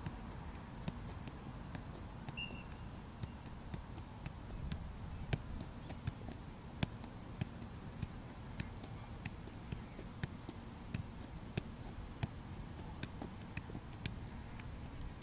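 Soccer ball juggled in keep-ups: a steady run of light thumps, a little more than one a second, each time the ball is struck, over a low steady rumble.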